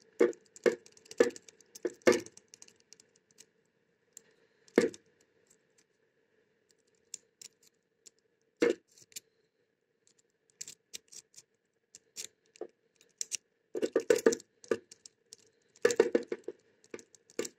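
Metal jiggler key clicking and rattling inside a single-sided wafer lock as it is rocked and turned under light tension. The sounds come in irregular bursts, sparse in the middle and bunched toward the end, and the lock does not open.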